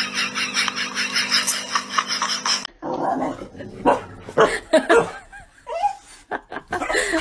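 Dog barks and yips in short separate bursts through the second half, after a few seconds of a fast, even rhythmic sound that stops abruptly.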